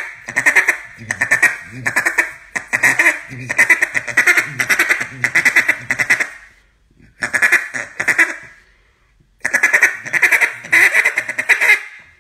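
Acrylic duck call blown in quick strings of loud, raspy quacks: a long run, a pause, a short group of two or three, another pause, then a second long run, tested as a demonstration.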